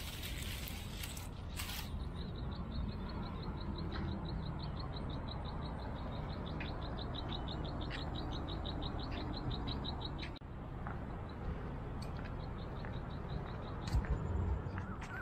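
A bird giving a fast, even trill of high chirps, about seven a second, that runs for some eight seconds and stops abruptly, over a steady low rumble. A short burst of noise comes at the start and a few low thumps near the end.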